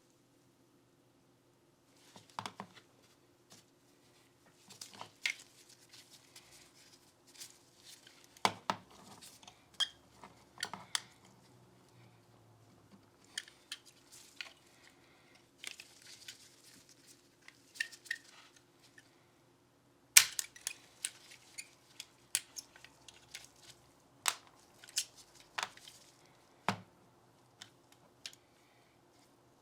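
Glock 19 Gen 5 pistol parts being handled on a bench: irregular sharp clicks and taps, with softer rubbing sounds between them. The loudest click comes about twenty seconds in.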